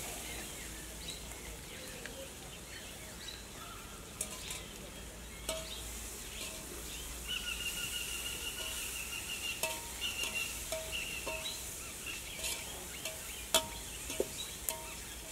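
A metal spoon stirring onion and tomato masala in a metal pot, clinking and scraping against the pot in a string of short ringing knocks from about five seconds in, louder near the end. A bird calls in the background.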